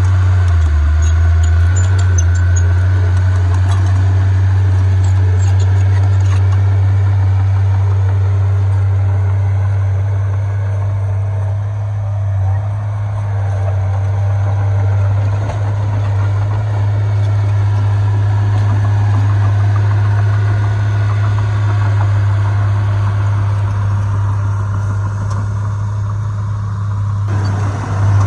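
Heavy diesel engines of earthmoving machinery running steadily with a deep, constant drone. The sound changes abruptly about a second before the end.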